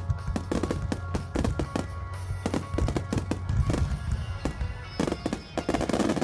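A fireworks display going off in rapid succession, with many sharp bangs a second over music, and a dense crackle near the end.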